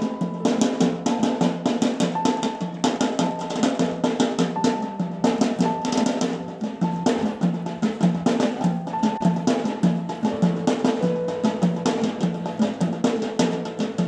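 Live music for a stage dance: fast, steady drumming under a short repeating melody that moves to lower notes about halfway through.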